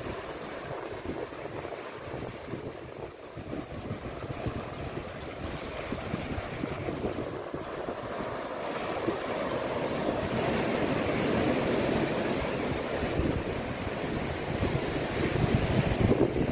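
Pacific Ocean surf breaking and washing up the shore, with wind buffeting the microphone. The surf swells louder about ten seconds in.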